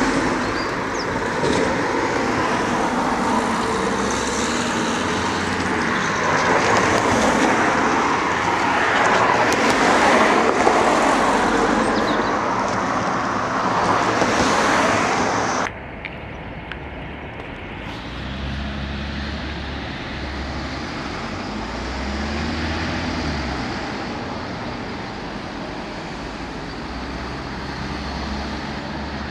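Road traffic: a steady wash of passing cars and other vehicles with swells as they go by. About halfway through it cuts suddenly to a quieter traffic recording, where low engine hums of vehicles rise and fall.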